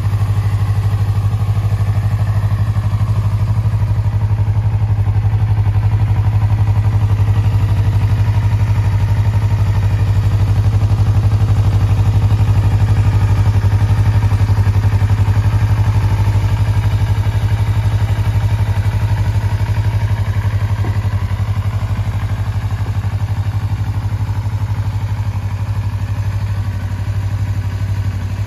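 Yamaha YZF-R25 (2020) 249 cc parallel-twin engine idling steadily through an aftermarket muffler.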